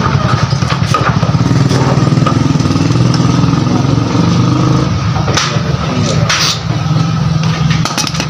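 Motorcycle engine idling steadily while a mechanic works on its carburettor, with a few sharp clicks about five and six and a half seconds in.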